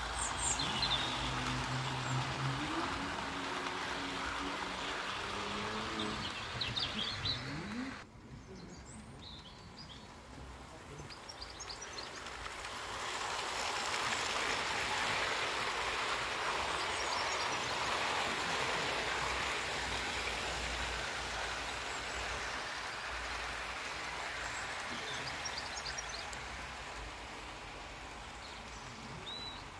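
00-scale model train rolling along garden track, its wheel-on-rail hiss rising from about twelve seconds in and then slowly fading. Birds chirp now and then.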